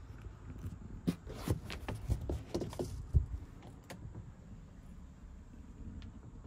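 Scattered light clicks and a few soft knocks of something being handled, most of them in the first four seconds, the loudest a dull knock about three seconds in.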